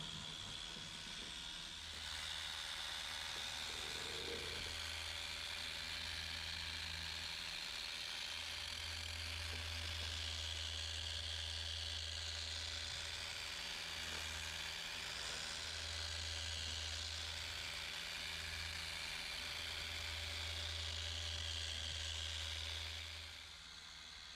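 Small machine polisher running with its pad on painted engine-bay sheet metal, a steady motor hum and whir. It starts about two seconds in, dips briefly a few times as the pad is worked around, and stops near the end.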